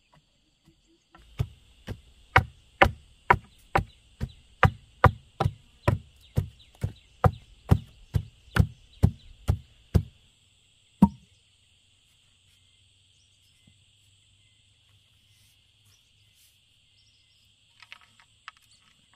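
Wooden pole tamping soil around the base of a bamboo fence post: about twenty dull knocks, roughly two a second, then a single last one a second later. Insects chirr steadily.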